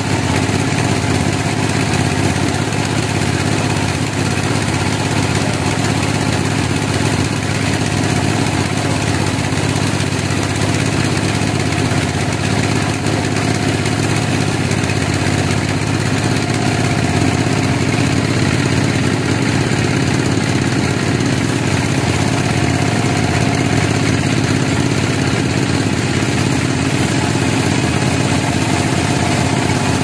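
Large band sawmill running with a steady mechanical drone, its blade sawing a log into slabs.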